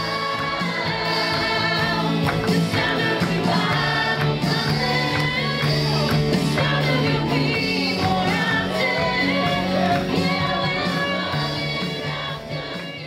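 Gospel music with singing over a full backing band, starting to fade out near the end.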